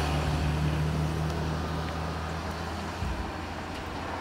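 A motor vehicle's engine running with a steady low hum that fades gradually.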